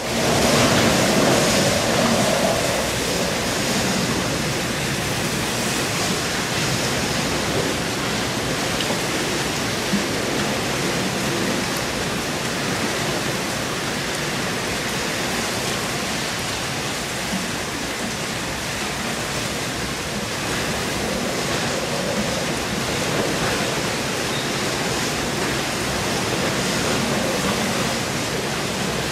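Typhoon wind and rain: a loud, steady rushing noise that swells slightly in the first few seconds.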